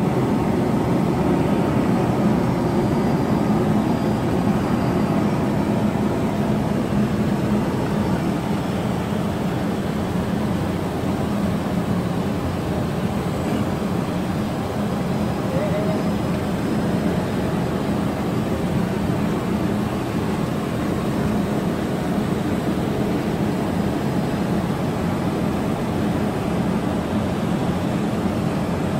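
Steady cockpit noise of an Airbus A330-300 on final approach: a constant rush of air and engine hum with a low drone, unchanging throughout.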